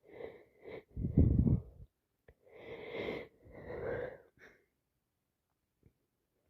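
A woman with a heavy head cold sneezing and breathing wheezily through a snotty nose. The loudest, sharpest burst comes about a second in, followed by two longer breathy sounds.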